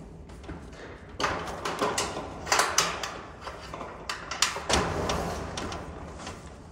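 Handling noise of irrigation pipe being worked into place along a greenhouse gutter: irregular knocks and clatter with rustling, starting about a second in. The sharpest knocks fall in the middle of the stretch, and the noise eases off near the end.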